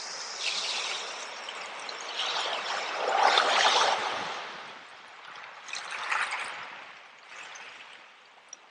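Water trickling and splashing. It swells louder about three seconds in and again briefly near six seconds, then eases off toward the end, with a few small drips and splashes.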